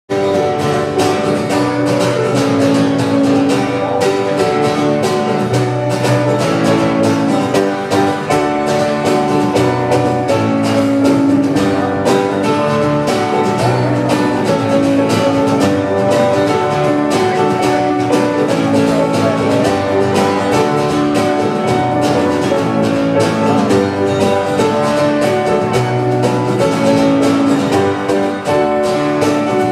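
Live worship band playing an instrumental intro led by guitar over drums and keyboard, starting abruptly; no singing yet.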